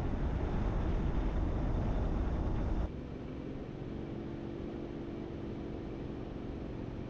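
A vehicle on the move with a loud, even rumble of road and wind noise. It drops abruptly about three seconds in to a quieter steady hum.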